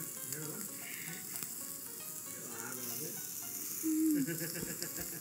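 Steady sizzle of zucchini and carrot strips sautéing in butter in a nonstick frying pan. A short hummed "mm" from the cook as she tastes comes about four seconds in.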